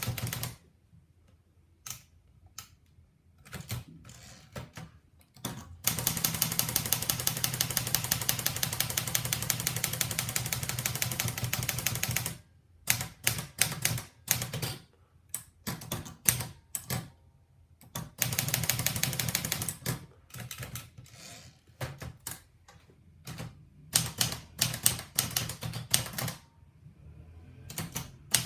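Olivetti Lettera 35 manual portable typewriter being typed on: scattered single key strikes, and two long runs of rapid, evenly spaced clatter, the longer lasting about six seconds.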